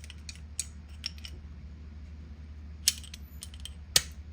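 Scattered light metallic clicks and clinks of a fitting being worked loose and taken out by hand, with two sharper clicks near the end, over a steady low hum.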